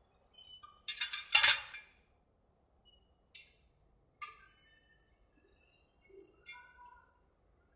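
Hard objects clinking and clattering: a loud burst of clinks about a second in, then a few lighter single clinks.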